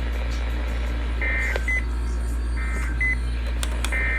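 Three short high electronic beeps about 1.4 seconds apart, each followed by a shorter thinner beep, over a steady low electrical hum and faint static.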